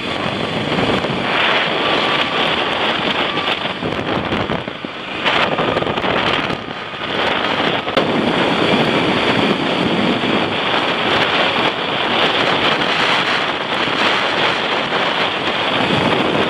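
Steady rush of wind over the microphone from a moving vehicle, easing briefly about five and seven seconds in.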